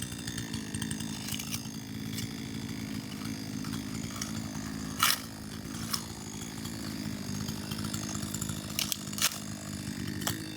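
A small engine running steadily with an even drone, and a few sharp knocks over it, the loudest about halfway through.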